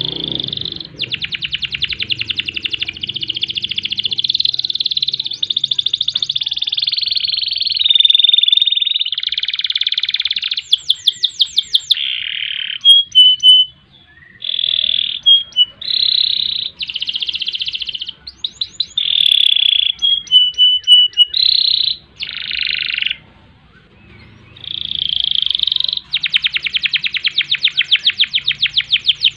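Domestic canary singing a long song of rapid rolling trills and high chattering phrases, each a few seconds long, broken by a few short pauses.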